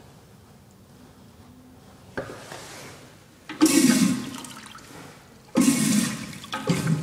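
American Standard Washbrook urinal (1.0 gpf) flushing: quiet at first, then water starts rushing into the bowl about two seconds in, coming in loud surges that each fade off, three of them in the second half.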